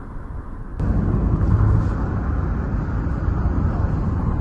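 Car driving along a road, its steady engine and road rumble heard from inside the cabin; about a second in it steps up abruptly to a louder, fuller rumble.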